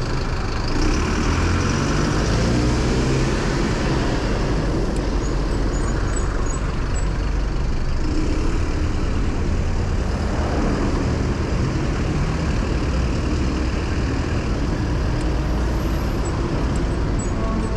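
City street traffic heard from a moving bicycle: car, bus and truck engines over a steady low road rumble, with one vehicle's engine rising in pitch as it speeds up in the first few seconds.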